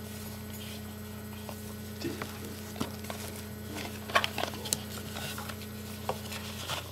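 Scattered soft taps and small clicks of cardboard and plastic packaging being handled, over a steady low electrical hum. One of the hum tones cuts off shortly before the end.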